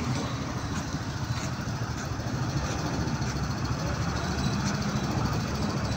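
A motor vehicle engine idling steadily, a little louder in the second half.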